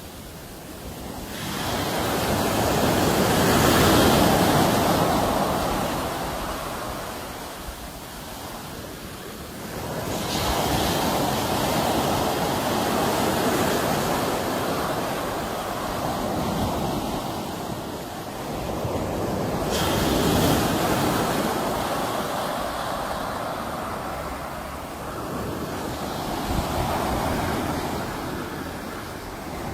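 Sea waves washing in on the shore, coming in slow surges that swell and fade, with the biggest rising a few seconds in, then again about a third and two thirds of the way through.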